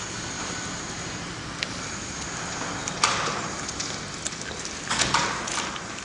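Hands squeezing and rubbing a wet cloth in a plastic bucket of water, with soft sloshing and a few sharp splashes or knocks, one about three seconds in and several near five seconds in. The hands are being washed of dark stain.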